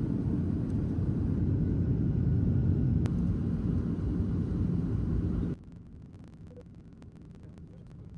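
Airliner cabin noise in flight: a steady low rumble of jet engines and airflow. It cuts off abruptly about five and a half seconds in, leaving a much quieter hiss with faint small clicks.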